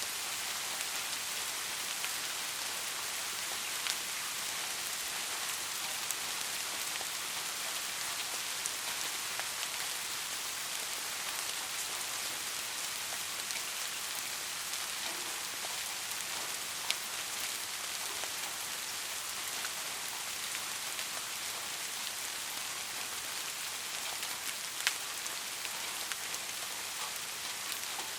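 Steady rain falling on a surface, an even hiss with a few sharper single drop ticks, the clearest about 17 and 25 seconds in.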